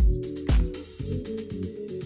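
Electronic background music with a steady kick drum about twice a second over held synth notes; the beat drops out for about a second partway through.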